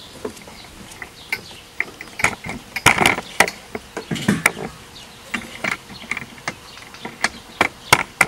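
Irregular clatter of light clicks and knocks, with heavier thumps about three seconds and four and a half seconds in.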